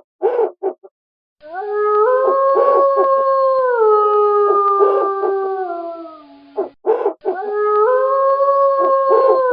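Wolf howling: a few short calls, then a long howl that rises and then steps down in pitch before fading. About seven seconds in come more short calls and a second howl that rises and holds.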